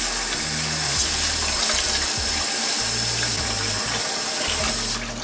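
Kitchen tap running a stream of water into a stainless steel pot of basmati rice in a steel sink, filling it for the first rinse of the rice. The water shuts off abruptly about five seconds in.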